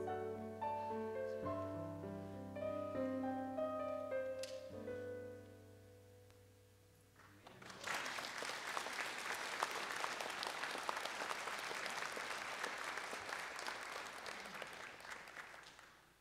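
The closing instrumental notes of a church special-music piece ring out and die away over the first few seconds. Then the congregation applauds for about eight seconds, fading out near the end.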